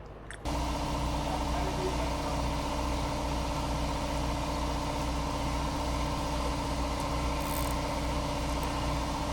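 A small engine comes on suddenly about half a second in and runs steadily at a constant speed.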